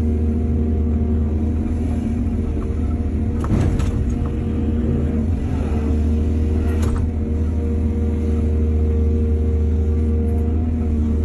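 Excavator's diesel engine running steadily, with two brief clattering knocks, one about three and a half seconds in and one about seven seconds in.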